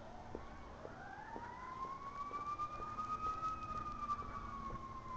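A faint siren wailing in one slow sweep of pitch, climbing for about three seconds and then gliding back down.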